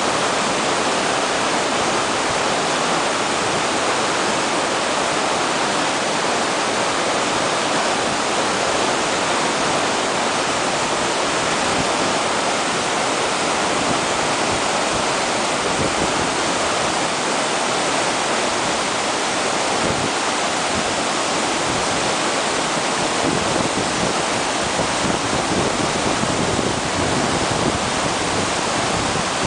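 Glacial meltwater torrent pouring out from under a glacier snout, a loud, steady rush of churning white water.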